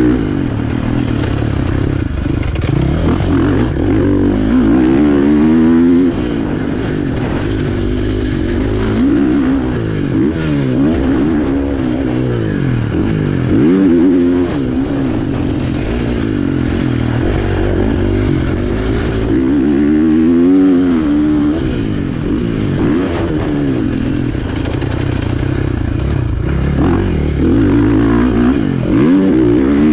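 Motocross bike engine being ridden hard, its pitch climbing and dropping over and over as the throttle is opened and shut, with several loud pulls through the stretch.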